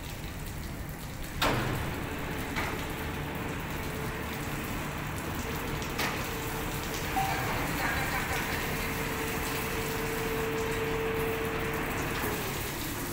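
Water pattering and dripping off a hoisted rescue boat and its outboard motors onto a wet concrete floor. A sharp metallic knock comes about a second and a half in, followed by a steady hum that stops shortly before the end.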